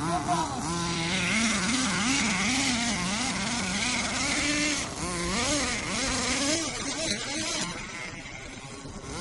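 Small nitro engine of a Volcano SV 4WD RC monster truck revving up and down in repeated throttle blips, the pitch rising and falling about twice a second, then running lower and quieter near the end.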